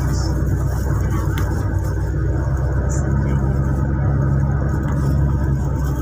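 Car engine and road noise heard from inside the cabin while driving: a steady low hum whose pitch shifts slightly about two seconds in.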